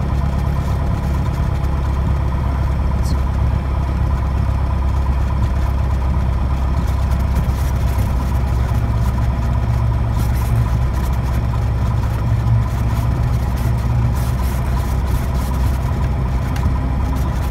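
Cessna 172S's four-cylinder Lycoming engine and propeller running steadily at low taxi power, heard inside the cabin, with power coming up slightly for a few seconds about ten seconds in.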